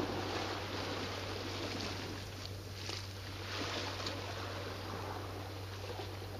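Small waves lapping and washing against a rocky shoreline, swelling and easing, over a steady low hum.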